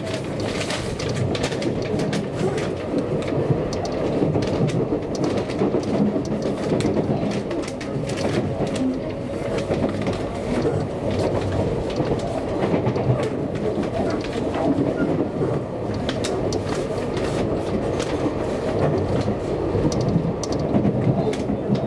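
Seibu Railway electric commuter train running along the track: a steady rumble of wheels and motors, with frequent clicks of the wheels passing over rail joints.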